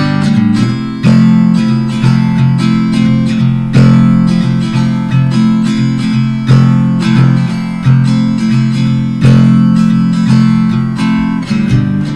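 Background music: acoustic guitar playing a steady run of plucked and strummed notes.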